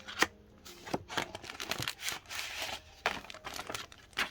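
Packaging crinkling and tearing as it is opened by hand: a sharp click near the start, then a run of crackles and rustles.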